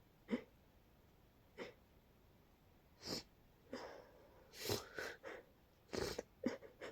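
A person's congested, sneeze-like hiccups: short sharp bursts through a stuffy nose, only a couple in the first two seconds, then coming quicker and closer together from about three seconds in.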